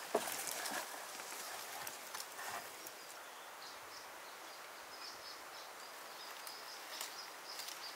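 Outdoor rural ambience: a few short knocks and rustles in the first seconds, then a run of short, high chirps over a steady background hiss.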